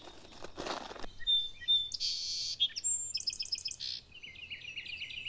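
Small birds chirping in short, high calls and trills, ending in a run of quick repeated notes.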